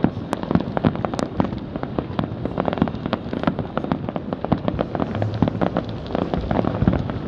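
Fireworks going off in a dense, continuous barrage: rapid sharp cracks and bangs, several a second, with louder bangs scattered among them.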